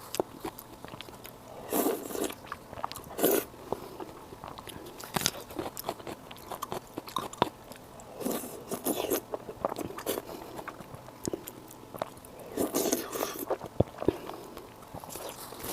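Close-miked eating sounds: wet chewing and biting with scattered clicks and smacks, a burst every second or two, as someone eats spicy pig brain.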